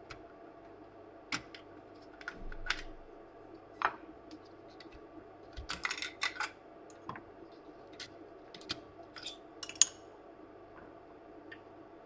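Irregular light clicks and taps of small tools and parts being handled on a repair bench, with a dense cluster about six seconds in and the sharpest click near ten seconds, over a faint steady electrical hum.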